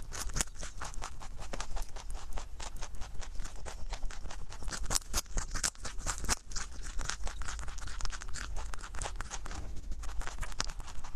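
Rabbit chewing a raw carrot right at a microphone: a fast, continuous run of crisp crunching clicks.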